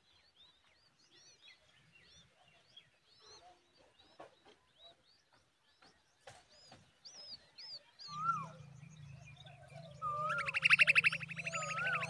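Common babbler nestlings begging at the nest: many short, faint, high chirps in quick succession. About eight seconds in, a steady low hum and whistled glides come in, and about two seconds later a loud, fast rattling trill becomes the loudest sound.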